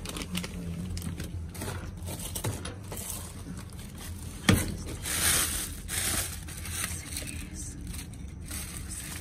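Hands rummaging through trash in a dumpster: plastic bags and wrappers crinkling and rustling, with items scraping and clicking against cardboard. One sharp knock comes about halfway through, followed by a burst of plastic rustling.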